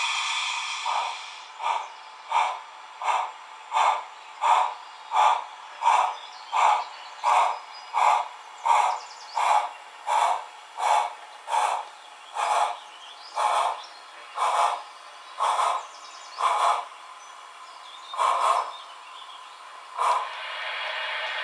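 A model steam locomotive's onboard sound unit gives out exhaust chuffs through its small speaker as the engine creeps forward, about one and a half chuffs a second. The chuffs slow and thin out as it comes to a stop, with the last two well apart. A steam hiss fades out about a second in.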